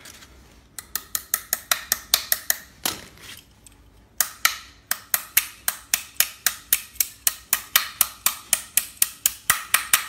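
Quick, light metal-on-metal taps, about four to five a second, from an adjustable wrench knocking on a mini pressure washer's pump head to tap a part of the pressure-switch relay home. A short run of taps, a pause about three seconds in, then a longer steady run.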